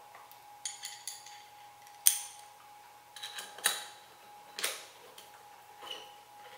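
Metal clicks and clinks of a hand hex driver turning cap screws down through a steel mounting plate into T-nuts, coming in irregular small groups, the sharpest click about two seconds in.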